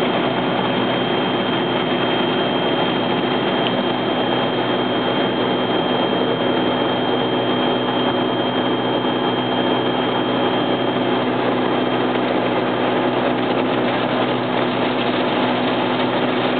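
Automatic car wash running, heard from inside the car: a steady wash of water spray and spinning cloth brushes with a machine hum, and a thin high whine that fades away about two-thirds of the way through.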